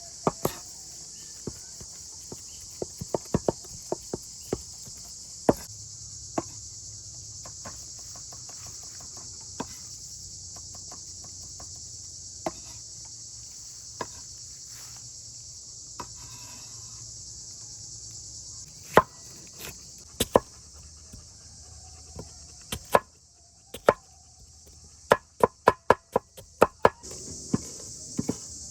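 Knife chopping on a cutting board: sharp, irregular knocks, with a quick run of strokes near the end. Under them is a steady high chorus of insects, which fades for a while before the end.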